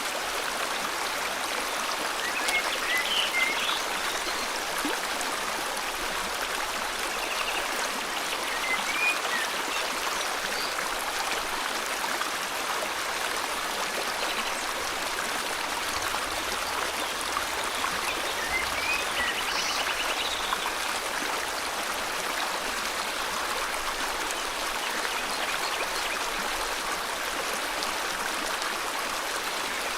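River water flowing steadily, with a few short bird chirps over it, about three seconds in, around eight to nine seconds in, and around twenty seconds in.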